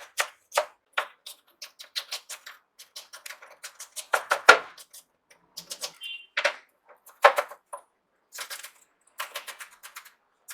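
Kitchen knife chopping an onion on a cutting board: quick, irregular knocks of the blade on the board, several a second.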